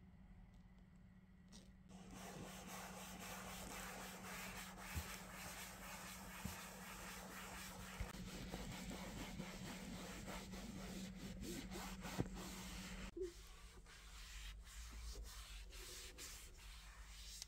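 Faint rubbing or scrubbing by hand on a car surface, with a few light knocks. It starts about two seconds in and stops about three quarters of the way through, over a low steady hum.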